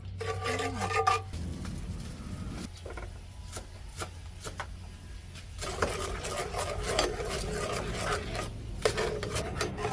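A utensil scraping and stirring in a pot or pan: a rough, rasping scrape that eases off for a few seconds in the middle and then picks up again.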